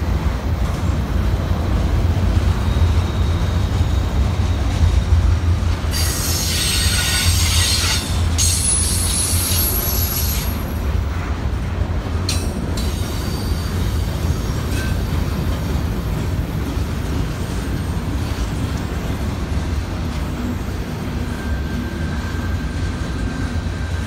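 CSX double-stack intermodal freight train rolling past close by, the container cars making a steady low rumble. A high wheel squeal rises over it for about four seconds, starting some six seconds in, with a short break in the middle.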